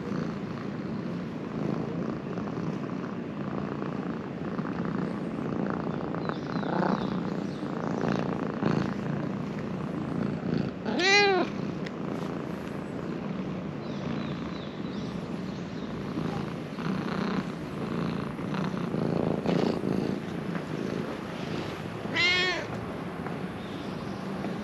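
Domestic cat purring steadily, with two short meows, one about halfway through and one near the end.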